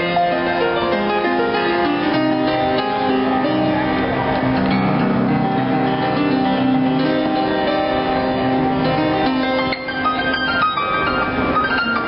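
Instrumental music played on a plucked-string instrument: a melody over chords of ringing, held notes, with a short dip in loudness near the end.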